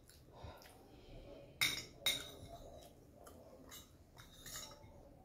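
Metal spoon clinking and scraping against a glass plate, with two sharper clinks about a second and a half and two seconds in, and fainter taps after them.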